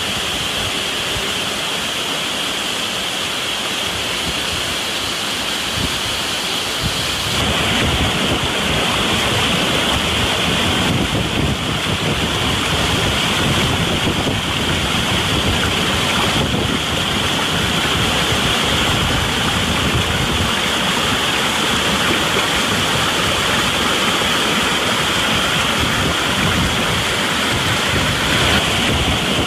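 Waterfall water rushing steadily, a continuous loud splash. About seven seconds in, it grows fuller and deeper.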